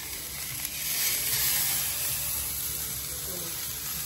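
Sausages sizzling on a hot flat-top griddle, a steady frying hiss that swells about a second in.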